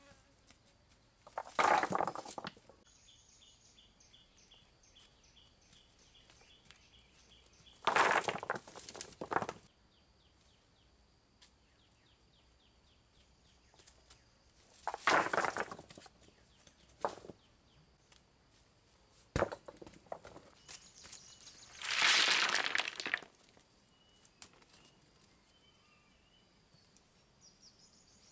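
Stones being dropped onto a rock pile, clattering and knocking in about four bursts of a second or so, several seconds apart, with a couple of single sharp knocks between. Faint rapid chirping trills run in the background.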